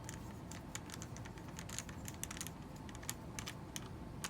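Light, irregular clicking and tapping on a Dell 3440 laptop, several clicks a second, over a faint steady hum.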